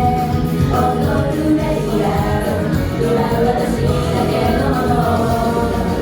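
Live J-pop idol group singing over a loud amplified backing track, several female voices carrying the melody.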